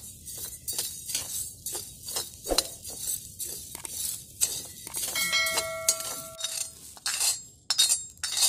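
Steel spoon scraping and clinking against a cast-iron pan as rice is stirred and dry-roasted, the grains rattling under it in quick irregular strokes. Near the end the roasted rice is tipped out of the pan.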